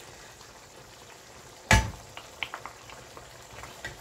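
Lamb simmering in liquid in a wok, a faint steady bubbling, with one sharp knock a little under two seconds in followed by a few light clicks.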